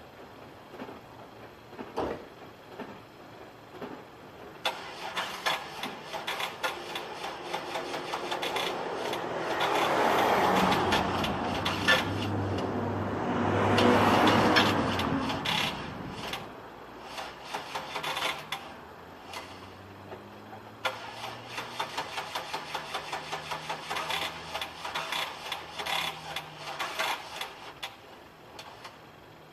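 Attempts to start a 2000 Pontiac Firebird's 3.8-litre V6: fast clicking, with a louder stretch of the starter cranking the engine from about eight to sixteen seconds in, and a run of regular clicks near the end. It is a hard start on a worn battery, and the engine does not keep running.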